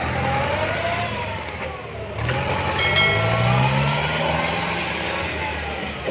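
Kubota M9540 tractor's diesel engine running as the tractor is driven on a test of its freshly bled brakes. The engine note rises as it accelerates about two seconds in, then levels off.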